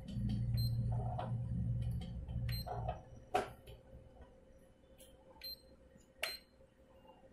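Buttons on a Canon imageRUNNER copier's control panel being pressed: a series of sharp clicks, several with a short high beep. A low hum runs under the first three seconds.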